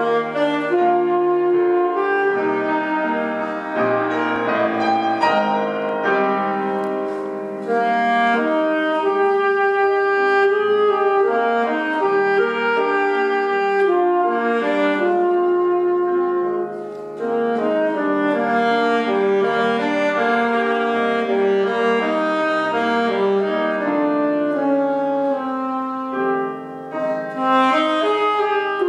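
Alto saxophone playing a flowing solo melody over piano accompaniment.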